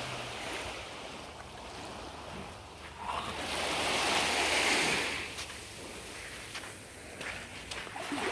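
Small waves lapping and washing onto a sandy Black Sea beach, the wash swelling to its loudest about four seconds in and then easing off.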